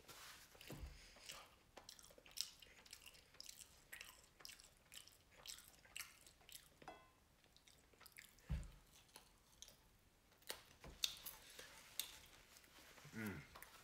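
Faint close-up chewing of a person eating french fries, heard as scattered soft mouth clicks and smacks. A brief hummed voice sound comes near the end.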